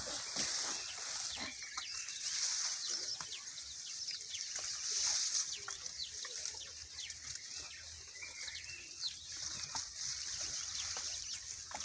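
Farmyard sounds at cattle feeding time: many scattered short clicks and rustles over a steady high-pitched hiss, with farm animal sounds.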